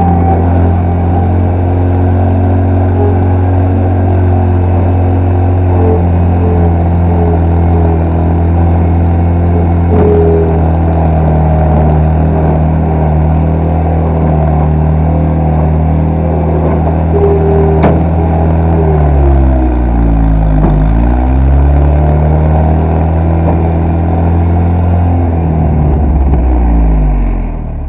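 Repowered skid steer's carbureted engine running steadily, its speed pulling down and coming back up twice, about two-thirds of the way through and again near the end.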